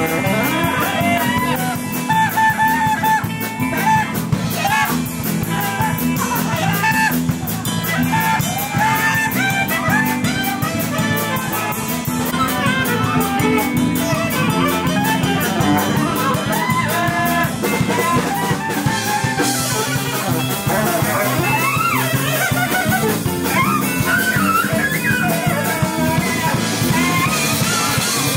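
Live jazz band playing: a saxophone solo with quick, sliding phrases over guitar and drum kit.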